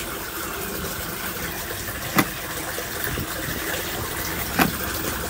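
Steady water-like noise with two short, sharp knocks, one about two seconds in and another past four and a half seconds.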